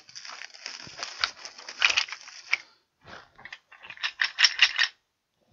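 A plastic-wrapped bundle of wood blanks being unwrapped and handled: crackling plastic film and clicks, then a quick ratchet-like run of sharp clicks about four seconds in.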